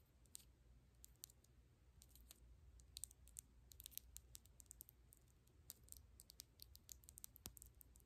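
Long press-on nails tapping and clicking together: quiet, sharp clicks, a few scattered at first, then quick irregular runs of taps from about three seconds in until near the end.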